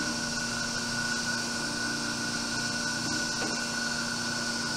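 Clausing/Jakobsen hydraulic surface grinder running through its automatic down-feed grinding cycle, with spindle motor, hydraulic pump and coolant going. It is a steady machine drone with a steady high whine over a hiss.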